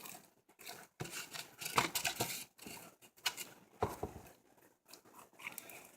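Homemade slime of clear glue, water and laundry detergent being stirred in a container: irregular scraping and crackling noises as the thickening mixture works against the container.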